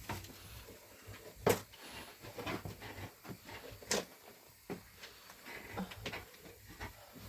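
A few scattered knocks and clicks, as of objects being handled; two sharper knocks stand out about a second and a half and four seconds in.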